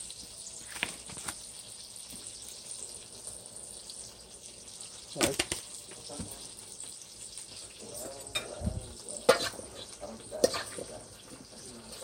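Butter faintly sizzling as it melts in a hot skillet, a steady low hiss. A few short knocks and clicks cut in, the loudest about five seconds in.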